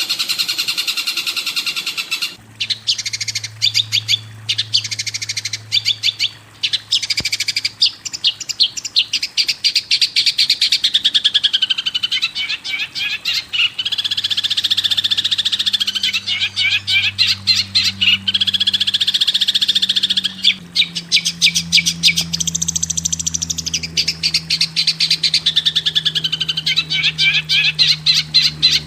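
Recorded songbird song: after a different continuous song in the first two seconds, fast runs of sharp chirps and rattling trills go on almost without pause, some rising and falling. A low steady drone sits underneath.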